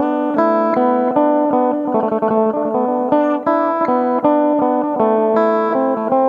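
Phin, the Isan Thai lute, played with fast picked melodic runs over a steady drone note.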